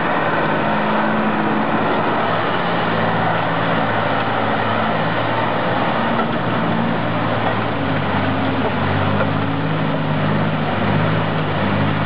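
Heavy logging truck's engine running under load as the log-laden six-wheel-drive truck pulls through deep mud. The engine note shifts up and down a little.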